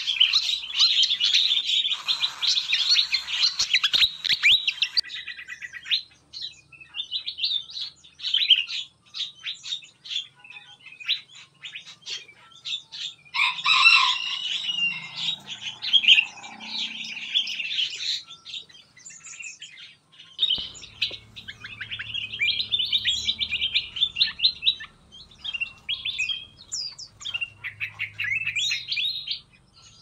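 Several kinds of small songbirds in an aviary chirping and singing at once: a busy, overlapping chorus of short high chirps and trills, with a few brief lulls.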